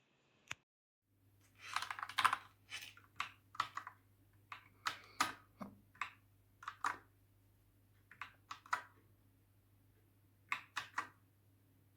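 Typing on a Dierya DK61se 60% mechanical keyboard with red linear switches: keystrokes clatter in irregular bursts, starting about a second in.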